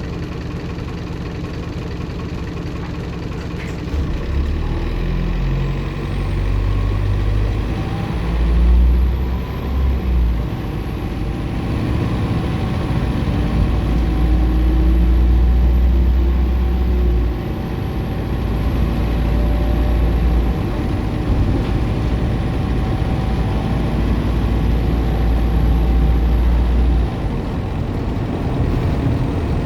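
Optare Solo M950 bus's turbocharged diesel engine pulling under load, with a high turbo whine that rises about six seconds in, holds, and dies away near the end as the engine eases off.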